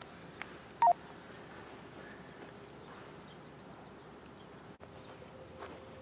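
A loud, very short two-tone electronic beep, high then lower, about a second in, followed a little later by a quick, high ticking trill lasting about two seconds. Near the end, an outdoor warning siren starts faintly winding up as a steady, slightly rising tone.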